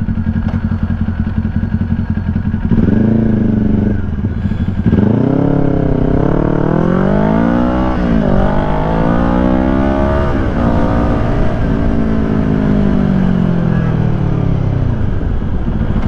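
Kawasaki Ninja 400's parallel-twin engine through a Yoshimura R11 full exhaust system. It idles, gives a short rev about three seconds in, then pulls away, climbing through the gears with a drop in pitch at each of two upshifts. Near the end it eases off in a long falling note.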